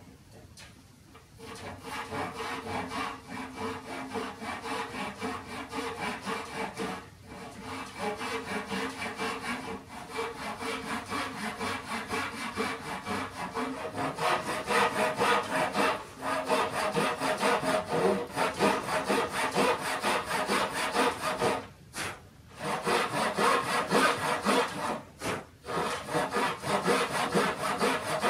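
Handsaw cutting a spline kerf across the mitred corner of a wooden tray, in steady back-and-forth strokes that start about a second in. The sawing stops briefly a few times and grows louder in the second half.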